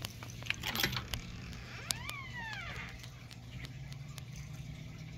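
Cat giving one short meow about two seconds in, its pitch rising briefly then falling. Before it come a few light clicks and a brief rustle, over a low steady hum.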